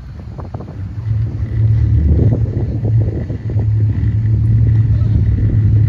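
Boat's motor running with a steady low drone, getting louder about a second in and then holding.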